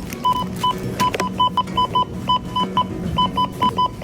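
Grocery checkout barcode scanner beeping as items are scanned: a quick, uneven run of short identical beeps, about four a second.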